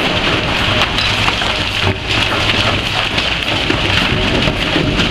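Hazemag rock crusher at work: a loud, steady clatter of rock being broken and stones rattling through the machine, made of many small sharp impacts.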